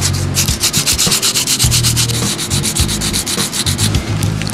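Hand sanding a plastic car door panel trim piece with a sanding block: quick, steady back-and-forth scratching strokes, several a second, that stop about four seconds in.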